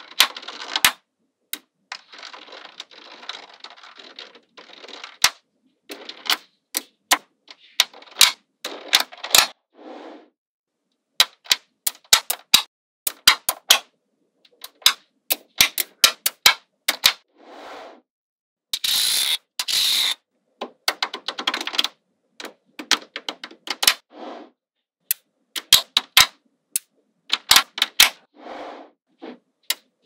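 Small magnetic balls clicking sharply as they snap together one at a time, irregularly spaced. There are stretches of softer rattling in between, and a louder, denser clatter about two-thirds of the way through.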